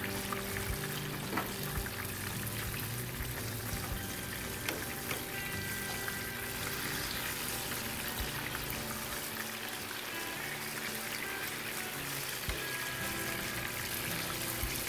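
Hot oil sizzling steadily as banana fritters deep-fry in their second frying, with a few light clicks of metal tongs turning them.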